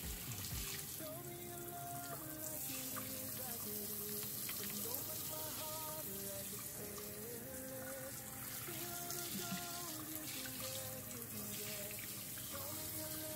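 Water from a kitchen faucet's pull-out sprayer spraying steadily into a sink as it is rinsed out. Background music with a stepping melody plays over it.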